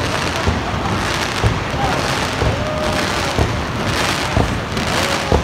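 Fireworks going off without a break: a dense, rain-like crackle with many sharp bangs scattered through it.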